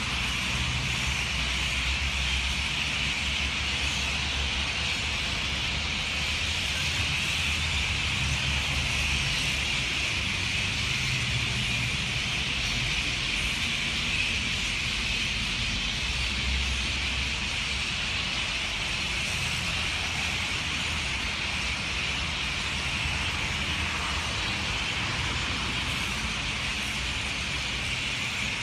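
A large flock circling overhead, its many calls blending into a dense, steady chatter, over a low rumble.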